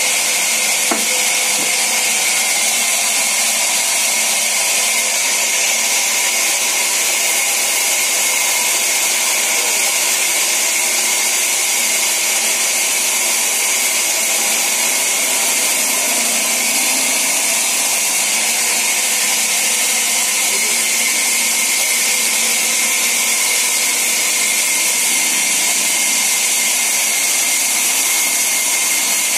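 Sawmill band saw running and cutting timber: a steady, loud, high-pitched hiss with a constant whine that doesn't let up.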